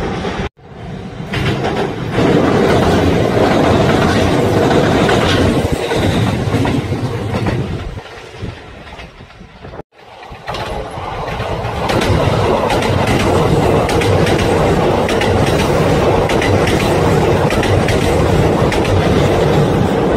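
Kintetsu electric trains passing, their wheels clacking over the rail joints over a steady rumble. The sound breaks off abruptly twice, about half a second in and again near the middle, and swells back up each time as another train comes through.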